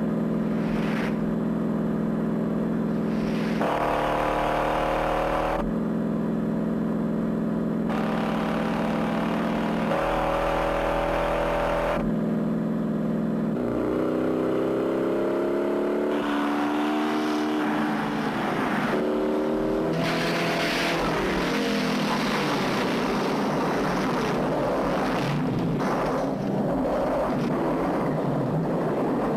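Two big V8 muscle cars at high speed, a 1968 Ford Mustang GT 390 and a 1968 Dodge Charger, their engines droning steadily and switching pitch as the sound cuts between the cars. About halfway the engines rev up and down through gear changes, then give way to a loud rush of engine, wind and tyres.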